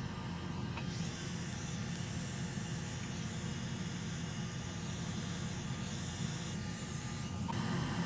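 Steady hiss over a low hum from the soldering bench as solder is wicked off a MOSFET's pins with desoldering braid and a soldering iron. The hiss changes character about seven and a half seconds in.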